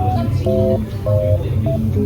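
Background music: a plucked guitar melody over a steady bass line.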